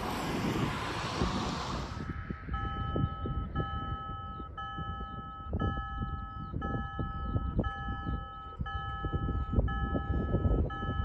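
Cars driving past for about two seconds, then the level crossing's warning bells start ringing: an electronic chime on several steady tones, repeating about once a second.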